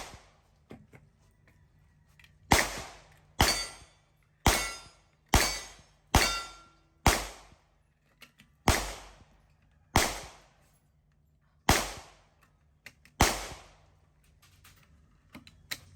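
Gunfire at a shooting range: about ten sharp shots in a loose string, roughly one a second, each followed by a short echo, with a couple of fainter shots between them.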